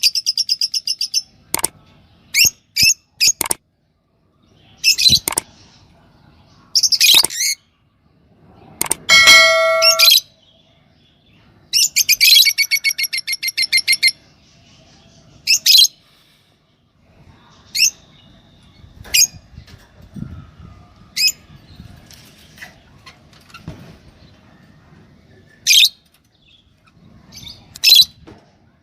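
A pair of yellow Fischer's lovebirds chirping. They give fast runs of repeated high chirps and sharp single calls, with a loud squawky burst about nine seconds in. The chirps grow sparser and softer in the second half.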